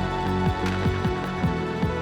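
Background music with a steady electronic beat: a kick drum about four times a second under held synth notes.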